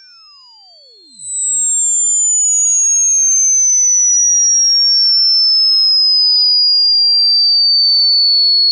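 Loud, very high-pitched electronic sine tone sliding slowly and evenly downward in pitch, at steady volume.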